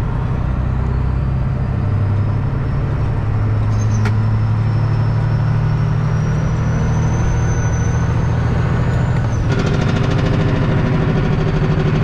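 Semi truck's diesel engine pulling steadily in seven low, heard from inside the cab, with a faint high whine that rises slowly. About nine and a half seconds in, the engine note changes and a rattlier sound comes in.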